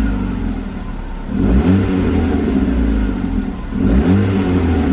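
Ford Focus engine being revved: the exhaust note climbs about a second and a half in and again near the end, holds briefly and settles back. The owner suspects it has an aftermarket muffler.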